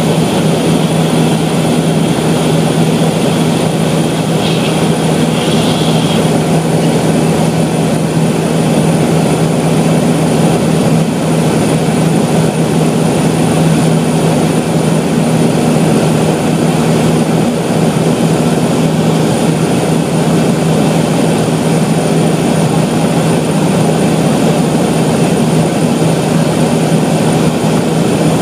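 Cessna 208 Caravan's Pratt & Whitney PT6A turboprop engine and propeller droning steadily in cruise, as heard inside the passenger cabin: a loud, even rumble with a strong low hum and a thin, steady high whine.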